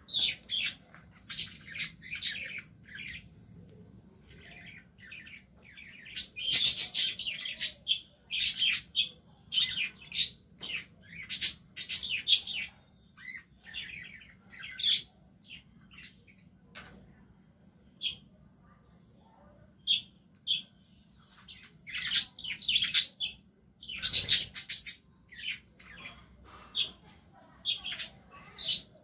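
Small birds chirping: rapid runs of short, high notes in irregular bursts, with brief pauses between them.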